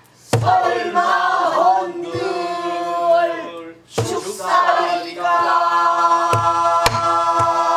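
Voices singing a pansori phrase together, with held, wavering notes broken by two short breaths. A buk barrel drum is struck sharply with a stick a few times to keep the rhythm.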